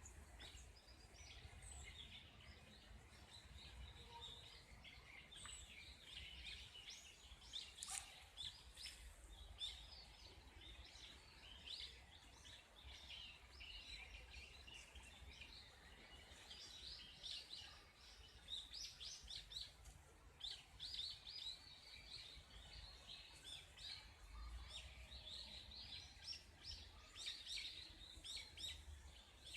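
Many small birds chirping and singing at once, short high notes overlapping one another throughout, over a faint low rumble.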